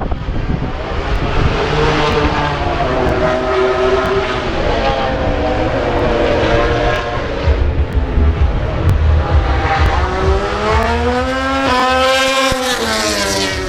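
Racing motorcycles at speed on the track, several engine notes rising and falling as the bikes pass. Near the end one bike's engine sweeps up in pitch and back down as it goes by.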